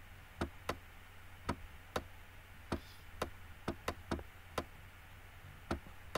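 Light, sharp clicks at irregular intervals, about a dozen, from the pen input used to hand-write numbers on a computer screen, over a faint steady low hum.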